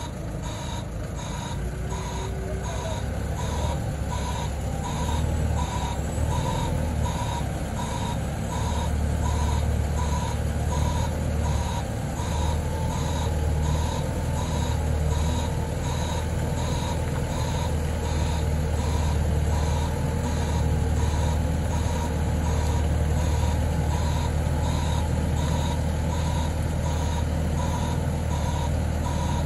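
Hyster H8.0FT forklift's reversing alarm beeping steadily, about one and a half beeps a second, over its engine running under load, which grows louder about four seconds in as it backs away with a heavy load.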